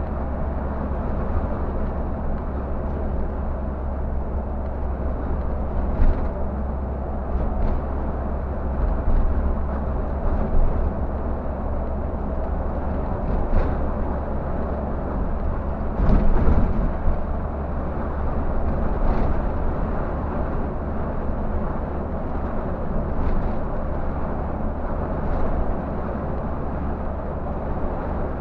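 Steady drone of a Scania coach's engine and tyres from inside the cab while cruising at highway speed, with a deep rumble underneath. A few brief knocks stand out, the strongest about two-thirds of the way through.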